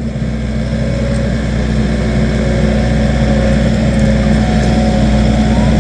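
Skid steer engine running steadily at high revs, with a constant low drone and a steady hum, while it powers the hydraulic tree shear.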